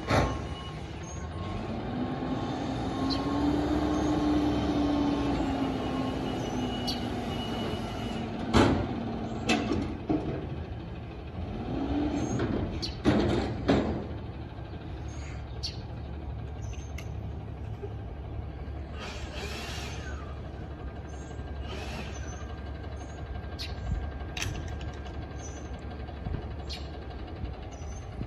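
Peterbilt front-loader garbage truck with a Heil body lifting a dumpster on its hydraulic arms: the engine revs up and down with a rising and falling whine from the hydraulics, then loud metal bangs from the can and arms about nine seconds in and again around thirteen seconds. Afterwards the truck runs at a steady idle with a couple of short air hisses.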